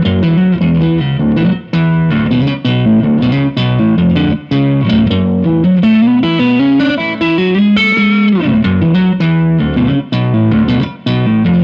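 Electric guitar played through a Meris synth pedal set as a sub-octave, with a compressor, an RC booster pushed into overdrive and a small reverb, picking a fast, rhythmic math-rock line of quickly changing notes with a strong low octave under them. It plays along with the original recording of the song.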